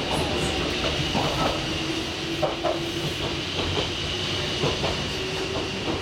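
Cabin noise of a Toyama Chiho Railway electric train under way: a steady rumble of wheels on the rails with a steady hum and occasional clicks from the track.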